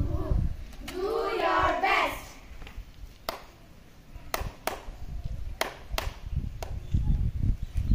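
Young girls' voices call out together briefly, then about six single sharp hand claps follow, spaced unevenly over a few seconds.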